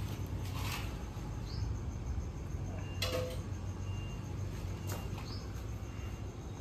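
Steady low background rumble, with a few faint clicks and two brief, high, rising chirps.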